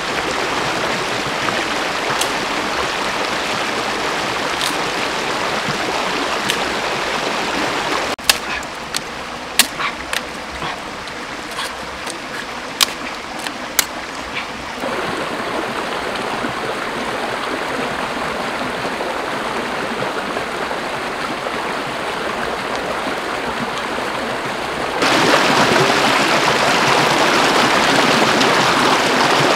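Shallow rocky stream running steadily over stones. In a quieter stretch about a third of the way in come several sharp clicks of dry twigs being handled, and near the end the rushing water grows louder.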